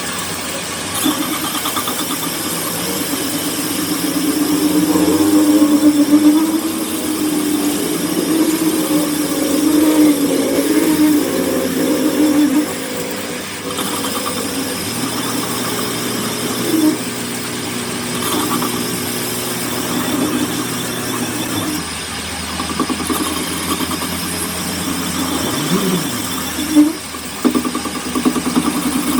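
Workshop machinery running with a steady motor hum that changes pitch a couple of times. A few brief squeals come through, one just before the end.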